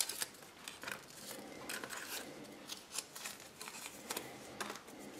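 Paper insert from a Kinder Surprise toy capsule being unfolded and handled: faint rustling with scattered small clicks.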